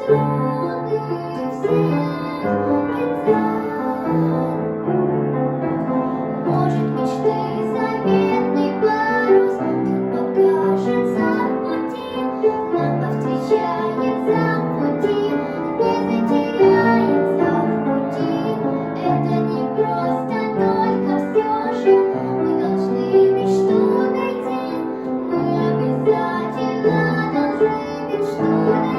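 A girl singing a song in a child's voice to piano accompaniment.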